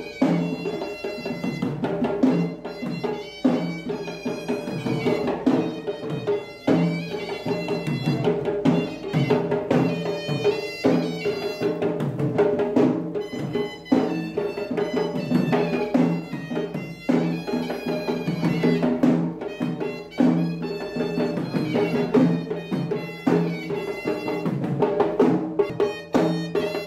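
Instrumental passage of a Sinhala Buddhist devotional song: a gliding melody line over a steady drum beat, with no singing.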